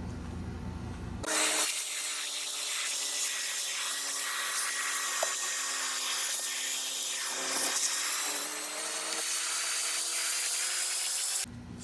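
Small electric vacuum cleaner running steadily, with a strong hiss of rushing air over a motor hum, as it sucks dust from inside a PlayStation 5. It switches on about a second in and cuts off near the end.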